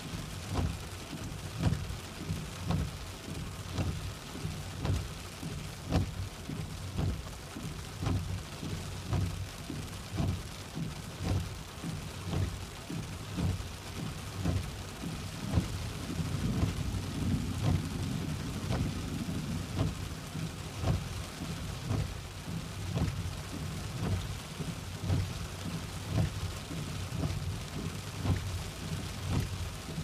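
Car windscreen wipers sweeping back and forth over a rain-wet windscreen, each stroke coming about a second apart in a steady rhythm, over the hiss of rain and a steady low rumble.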